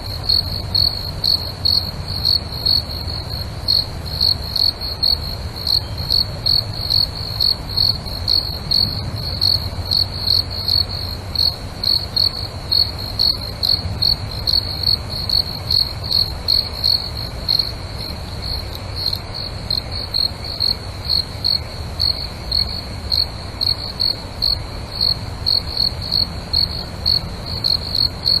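Cricket chirping in an even, steady rhythm, about two high-pitched chirps a second, over a steady low background rumble.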